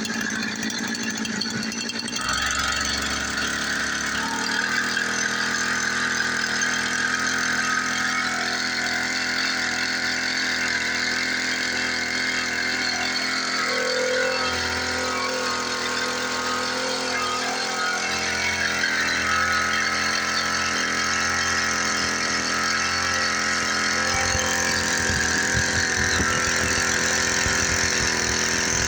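Small engine of a motorized sprayer running steadily at high speed while spraying insecticide against fleas and lice.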